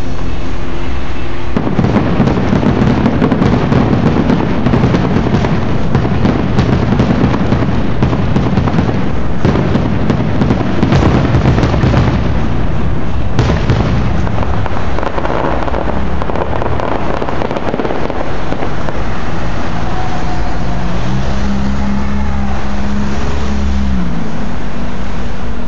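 Fireworks going off overhead: a dense run of crackling and bangs from bursting shells for about twelve seconds, which then thins out. A low, steady drone comes in near the end.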